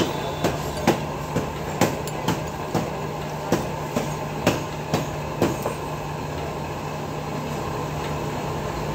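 Sharp metal clinks, about two a second, stop a little past halfway, over a steady low mechanical hum.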